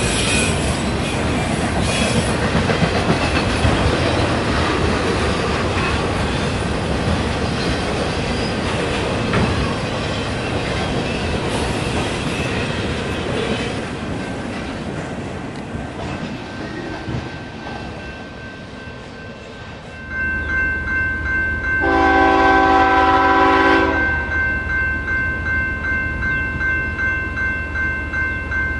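Freight autorack cars rolling past with steady wheel clatter and some wheel squeal, fading as the end of the train goes by. Then a railroad grade-crossing bell rings in a rapid, steady rhythm, and a locomotive air horn sounds once, held for about two seconds.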